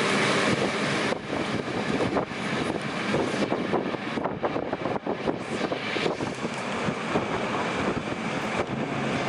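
Passenger train hauled by an electric locomotive pulling out of a station, heard from an open coach window: rolling train noise with wind buffeting the microphone. The noise turns choppy and gusty about a second in.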